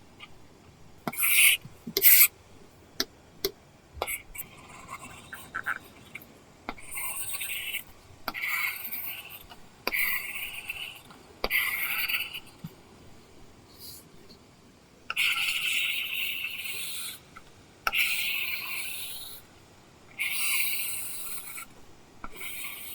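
Apple Pencil tip scratching across an iPad screen fitted with a paper-feel film, in a series of short and longer rasping drawing strokes, with light taps of the pencil tip between them. The longest strokes come in the second half.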